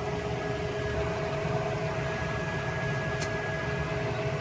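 Gas pool/spa heater's combustion blower fan running steadily, a hum with two steady tones over an even whir. It is the sign that the heater is starting up now that water flows through it and its pressure switch is satisfied.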